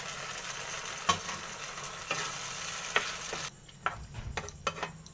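Onions, capsicum and chillies with a soy-and-tomato-sauce mixture sizzling in a pan over a raised flame, with a spatula knocking against the pan about once a second. The sizzle stops suddenly about three and a half seconds in, leaving a few scattered scraping clicks of stirring.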